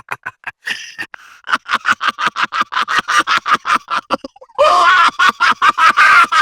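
A witch's cackling laugh: a rapid run of high-pitched 'ha-ha' pulses, about seven a second, with a breathy intake about a second in. After a short break it comes back louder and more sustained about two-thirds of the way through.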